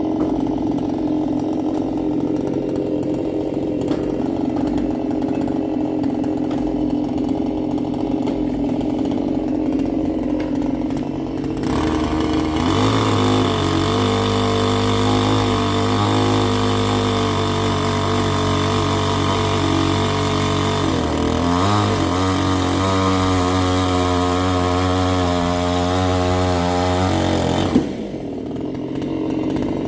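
Two-stroke Stihl gasoline chainsaw running at low speed, then suddenly opened up to full throttle about twelve seconds in. Its pitch sags and recovers once midway through the high-speed run, and the saw drops back to low speed near the end.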